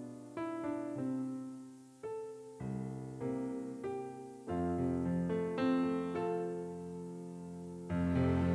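Background piano music: a slow piece of struck notes and chords that ring and fade, with deeper bass notes joining about halfway through.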